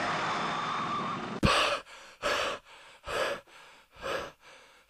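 A steady rushing noise cuts off suddenly about one and a half seconds in. Then a man pants heavily, with loud gasping breaths a bit under a second apart, as on jolting awake from a dream.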